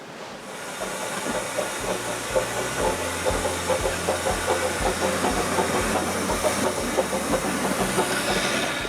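Small narrow-gauge steam locomotive hissing steam at a standstill, with regular low thumps about twice a second.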